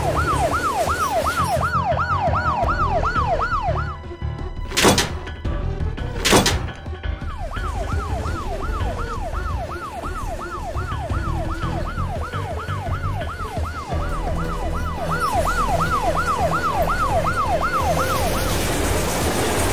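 Cartoon police car siren wailing in quick up-and-down sweeps, about three a second, over background music. It breaks off about four seconds in for two sudden sharp whooshing hits, the loudest sounds here, then starts again and runs until just before the end.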